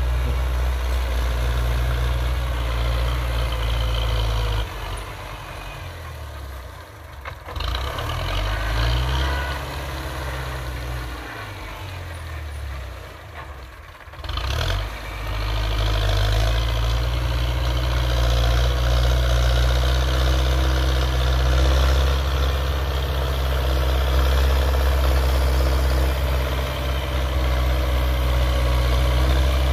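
Belarus 925 tractor's four-cylinder diesel engine running under load, driving a rear rotary tiller through dry, hard soil. From about five seconds in, the engine sound drops and its pitch wavers. It comes back loud and steady after about fifteen seconds, as the tractor draws close.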